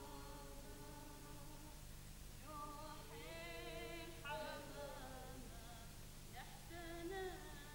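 Slow singing in long held notes that slide and waver in pitch, with no accompaniment, over a steady low hum.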